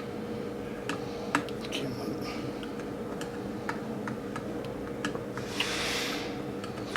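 Irregular light clicks and ticks from handling a pole-saw chain and bar while its tension is being adjusted, with a brief rasping scrape a little before the end.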